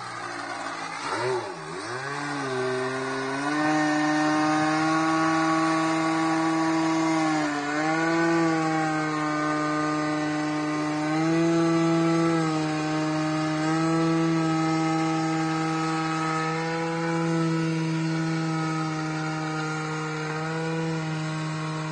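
Radio-controlled aerobatic model airplane's small engine running in flight, a steady buzzing tone that dips and swells in pitch as the plane manoeuvres and passes; the pitch sweeps quickly up and down in the first two seconds and again about seven seconds in.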